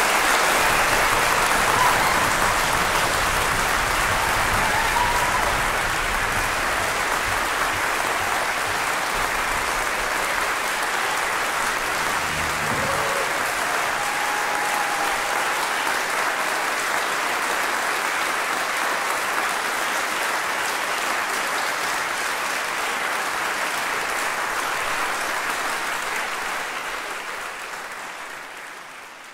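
Concert audience applauding steadily, fading out near the end.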